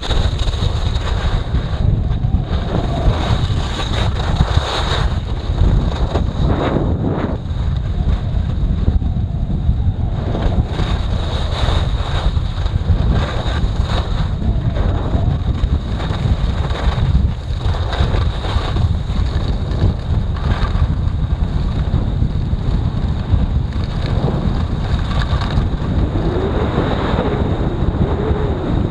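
Wind buffeting the microphone of a camera carried on a downhill ski run: a loud, steady low rumble, with a higher hiss that swells and fades every few seconds.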